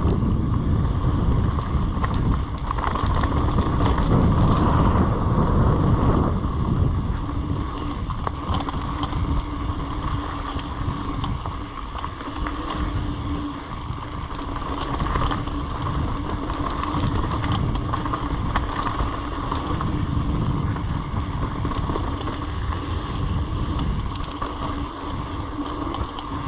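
Mountain bike riding a dirt trail: tyres rumbling and the bike rattling over rough ground, with wind buffeting the microphone.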